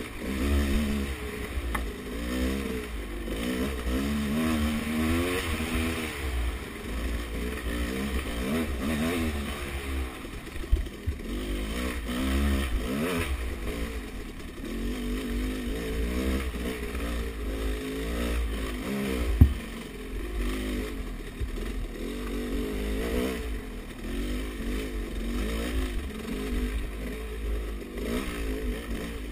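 Dirt bike engine revving up and down over and over as the rider works the throttle, with a constant low rumble and clatter of the bike underneath. Two sharp knocks stand out, one about a third of the way in and a louder one past the middle.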